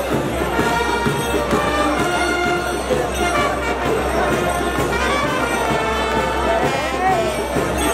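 A brass band playing a tune, over crowd chatter.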